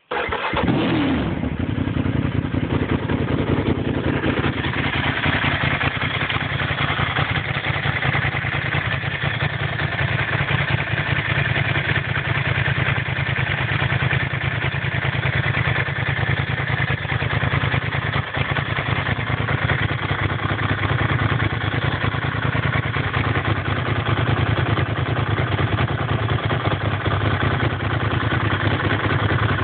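Ducati 1000SS air-cooled two-valve L-twin starting at once through GPR carbon slip-on exhausts with the dB killers fitted; the revs settle over the first few seconds into a steady idle.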